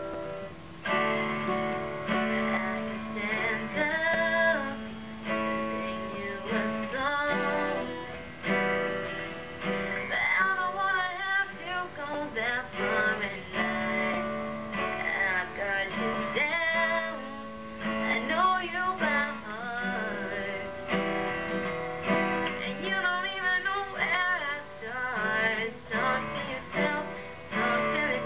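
A woman singing a pop ballad over strummed acoustic guitar.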